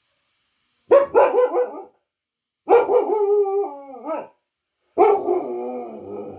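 A dog howling in three drawn-out calls, each sliding down in pitch toward its end. The last call trails off more slowly.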